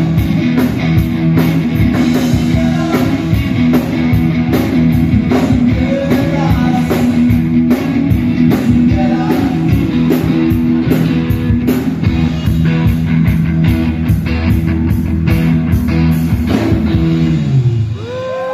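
Live rock band playing loudly: electric guitars, bass and a drum kit with a steady beat, and a voice singing. Near the end the low notes slide downward and the song stops.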